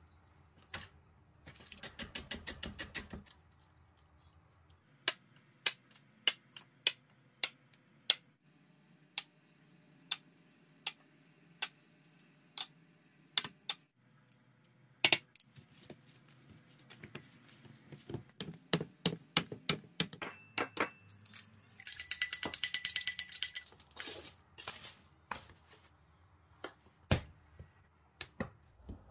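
A metal spoon and other kitchen utensils tapping, clinking and scraping against a stainless steel mixing bowl: a run of separate sharp taps, with two spells of quick rattling scraping, the later one ringing with a metallic tone.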